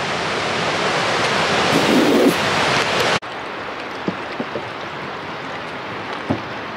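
A steady rushing hiss that cuts off sharply about three seconds in and drops to a quieter hiss. Over the quieter part, footsteps land a few times on the wooden planks of a boardwalk bridge, making soft knocks.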